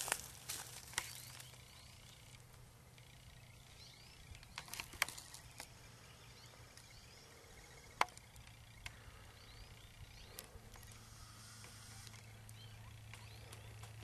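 Footsteps pushing through brush, with scattered sharp snaps and cracks of twigs, the sharpest about eight seconds in. Faint bird chirps come and go behind them over a low steady hum.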